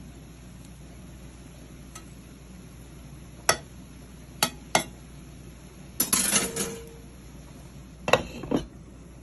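Kitchen dishes and utensils clinking and clattering: three sharp clinks, a short rattle about six seconds in, then two knocks near the end.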